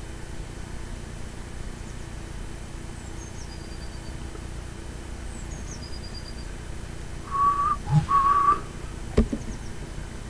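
Two short whistled notes at one steady pitch, about seven and eight seconds in, over a low steady hum, followed by a single sharp click. Faint, high, falling chirps come twice earlier on.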